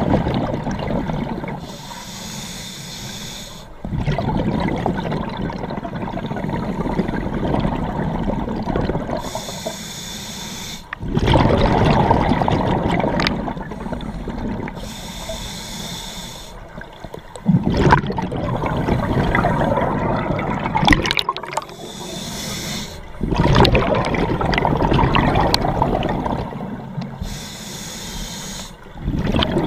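Scuba diver breathing through a regulator underwater: long bubbling exhalations alternate with shorter, quieter hissing inhalations, about one breath every five or six seconds.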